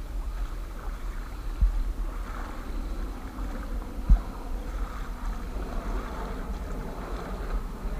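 Wind buffeting the microphone and water sloshing around a small boat, with two dull knocks, one under two seconds in and another about four seconds in.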